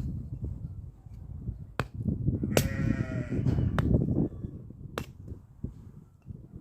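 A farm animal bleating once, a wavering call of about a second starting some two and a half seconds in. Several sharp clicks and a low rumbling noise run underneath.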